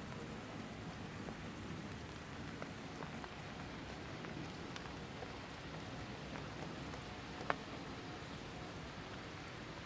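Steady light rain, with scattered drops ticking on leaves and other surfaces and one sharper drop tick about seven and a half seconds in.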